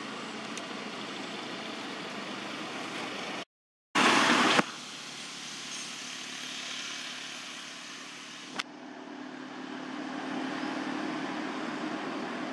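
Steady outdoor background noise with a vehicle-like engine hum that grows a little stronger in the second half. The sound cuts out to silence briefly about three and a half seconds in, then a loud half-second burst of noise follows, and a single sharp click comes at about eight and a half seconds.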